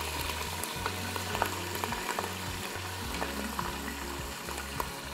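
Prawns frying in hot oil with ginger-garlic paste in a pot: a steady sizzle with many small crackles and pops.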